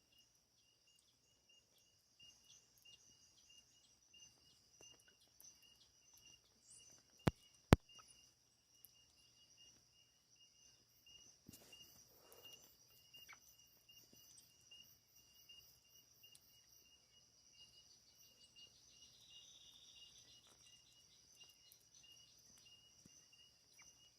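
Faint, steady chirring of insects, with a quick pulsing tone in it. Two sharp clicks come about half a second apart, around seven seconds in.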